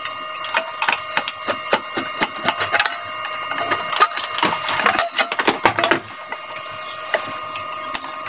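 Screwdriver clicking and scraping against the screws of a water pump motor's rear fan cover as they are undone: an irregular run of sharp clicks and scrapes.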